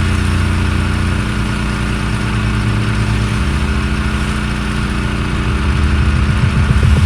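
Gas-engine pressure washer running steadily, a constant low engine hum with a hiss over it.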